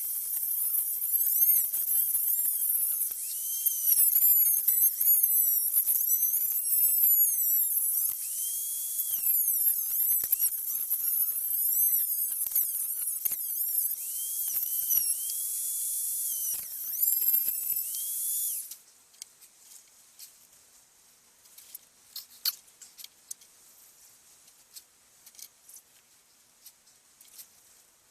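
Small high-speed rotary power tool running under load, a high-pitched whine that repeatedly sags in pitch as it bites into the work and recovers as it is eased off. It stops abruptly about 19 seconds in, leaving only faint scattered clicks and taps of handling.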